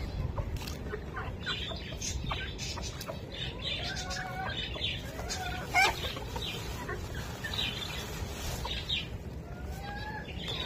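Hens clucking and birds chirping in a mixed backyard flock of chickens, ducks and pigeons feeding at scattered grain, with many short high calls and a few rising ones. There is one short, louder sound a little before six seconds in.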